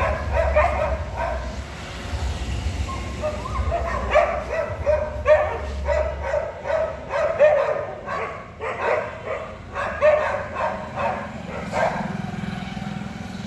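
Street dogs barking in short, repeated barks, coming in clusters with brief pauses between them and stopping about twelve seconds in.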